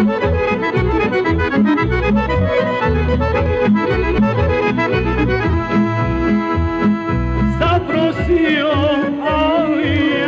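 Accordions playing a folk instrumental over a steady pulsing bass beat. About eight seconds in, a man's singing voice with wide vibrato comes in over them.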